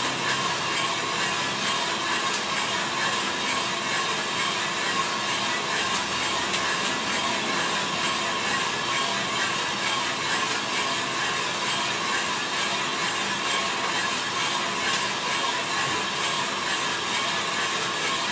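Small drum coffee roaster running mid-roast: beans rattling steadily in the turning drum over the hum of its fan and burner.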